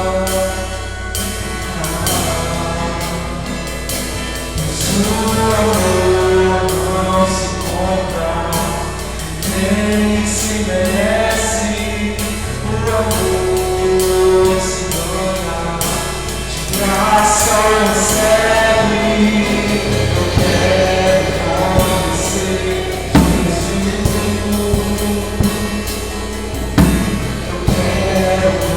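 Live worship band playing: a singer over acoustic guitar and a drum kit with crash cymbals and hi-hat keeping a steady beat, recorded through a mobile phone's microphone.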